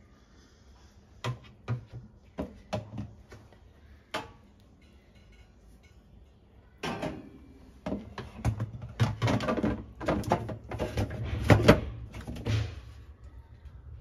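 Clicks and rattling of plastic and metal parts as the drain filter at the bottom of a Bosch dishwasher's tub is handled and twisted out for cleaning: a few separate sharp clicks at first, then a busier clatter for several seconds near the end.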